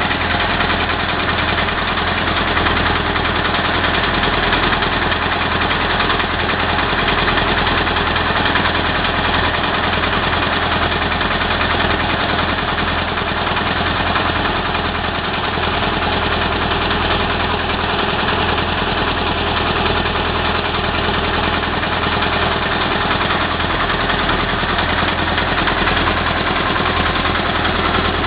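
RAMMAX drilling rig's engine running steadily and loudly, a constant mechanical din with a low hum that does not change.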